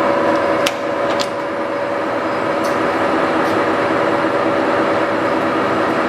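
TOS SN50c engine lathe running under power, its headstock gearing giving a steady hum with a constant whine. Two sharp clicks come about a second in.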